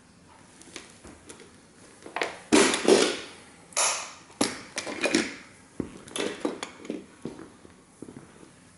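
A 1:18 scale model toy car being crushed under sneaker soles: a run of crunching and crackling, loudest about two and a half seconds in, then smaller crackles for several seconds.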